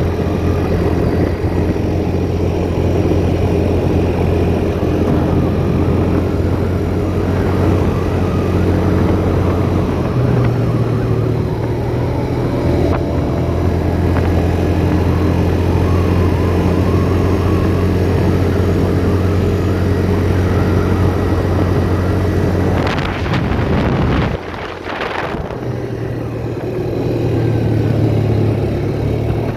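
Four-wheeler (ATV) engine running steadily while riding. Near the end a short burst of noise comes through and the engine drops off, then builds up again.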